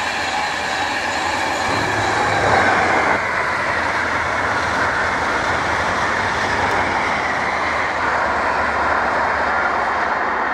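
Passenger train passing at speed: a steady rush of wheels on the rails that swells slightly a few seconds in.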